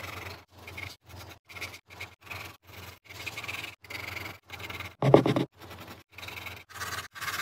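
Graphite pencil hatching on drawing paper: short scratchy strokes, two to three a second, with one louder scrape about five seconds in.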